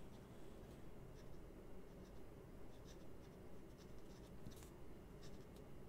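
Faint scratching of a fine-nibbed brass fountain pen writing on a paper note card, with a few light ticks of pen strokes, one a little stronger near the end. The Traveler's Company steel nib has a little feedback on this paper, which the writer thinks may be the paper's texture.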